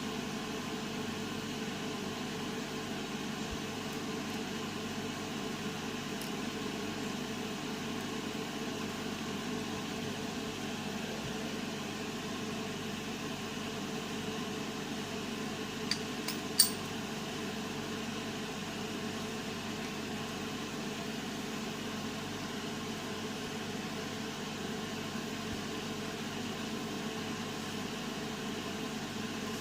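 Steady background hum and hiss, broken a little past halfway by two short sharp clicks about half a second apart, the second one louder.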